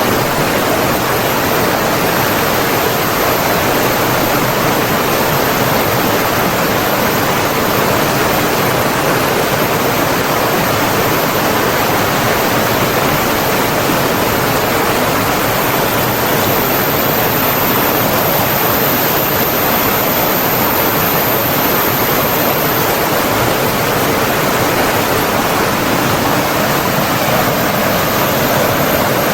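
Flowing water running steadily, an even dense rush with no breaks, with a faint steady high-pitched tone above it.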